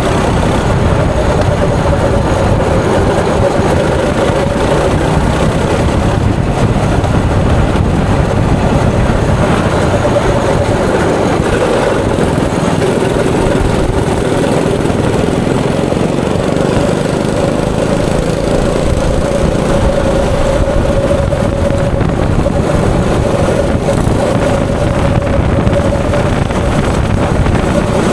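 Go-kart engine running under throttle from the driver's seat, its note dipping and rising as the kart slows for the corners and accelerates out of them.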